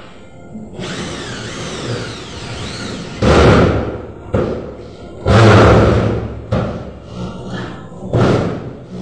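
A corded power drill is run in three short bursts overhead against metal ceiling framing, each burst loud and brief. A song plays faintly underneath.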